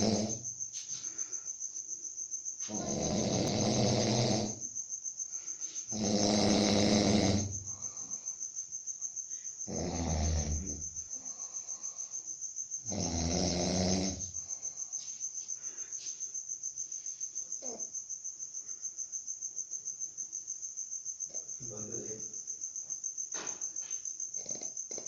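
A man snoring in deep sleep: a low-pitched snore every three to four seconds, five strong ones and then three fainter ones. Crickets chirp steadily and rapidly underneath.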